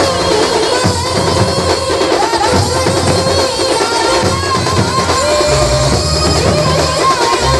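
Maharashtrian banjo band playing a lavani tune: a wavering lead melody over loud, continuous drums and percussion.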